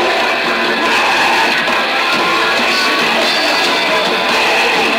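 Punk rock band playing live, with dense electric guitar, in a lo-fi amateur recording that has almost no bass.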